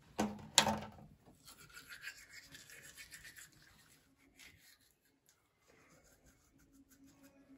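A child brushing her teeth with a manual toothbrush: faint scrubbing for about three seconds, after two sharp knocks in the first second.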